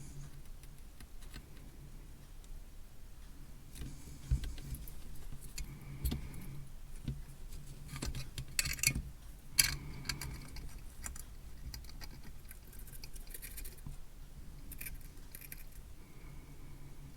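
Small handling noises at a workbench: light clicks, taps and a few metallic clinks of tools, wires and a small circuit board being moved about, with the busiest stretch in the middle, over a faint steady low hum.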